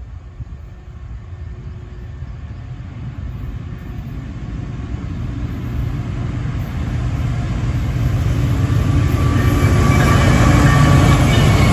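CSX diesel freight locomotives approaching and passing, their engine rumble growing steadily louder, with wheel and rail noise rising as the lead unit comes by near the end.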